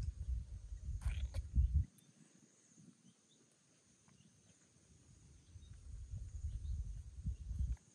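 Wind buffeting the microphone in two gusts, the first stopping abruptly about two seconds in and the second rising again over the last few seconds. A faint steady high insect drone runs beneath, with a brief high chirp about a second in.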